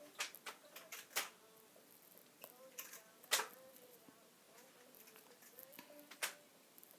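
Scattered sharp clicks and taps, several close together in the first second or so, then single ones with gaps, the loudest a little past the middle.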